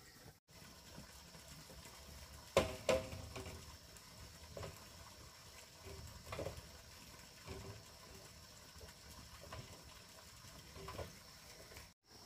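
A few scattered knocks and taps, two louder ones close together about two and a half seconds in and fainter ones every second or two after, over a faint steady high hum.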